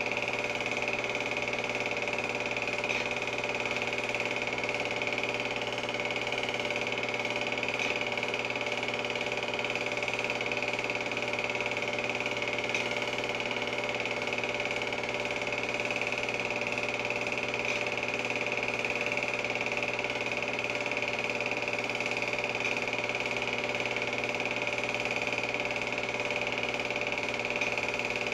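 Film projector running steadily: a continuous mechanical whirr and clatter with a high, even hum and no change in pace.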